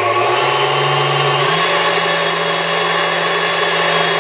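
Electric stand mixer motor whipping heavy cream in a steel bowl. It runs steadily, and its hum steps up in pitch twice as the speed is raised.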